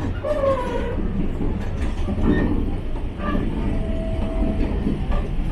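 Philippine National Railways passenger train running on the track, heard from aboard: a steady low rumble with a few short higher tones over it, one held briefly about four seconds in.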